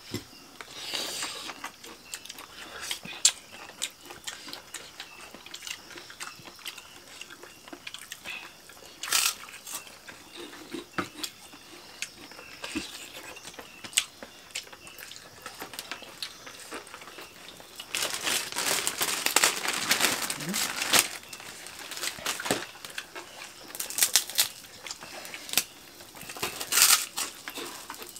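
People eating with their hands from banana leaves: chewing and mouth noises, with scattered small clicks and leaf rustling, and a denser stretch of rustling about two-thirds of the way in.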